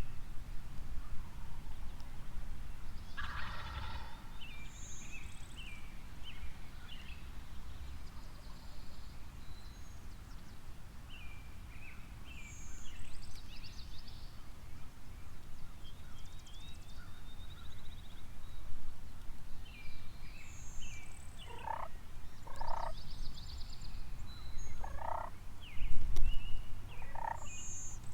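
Wild turkey gobbler gobbling several times, the first and clearest about three seconds in, with small birds chirping. Low wind rumble on the microphone runs underneath, with a stronger gust near the end.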